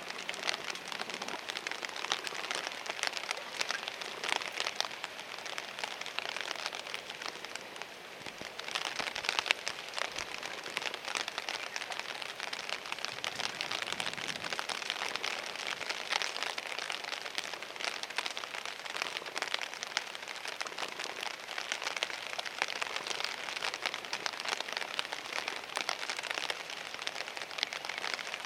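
Steady crackling hiss of water, thick with tiny pattering clicks, easing briefly about eight seconds in.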